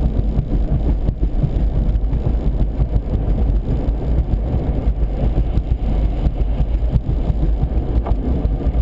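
Steady low rumble of a vehicle driving along a highway at speed, heard from inside the cabin: engine, tyre and wind noise together.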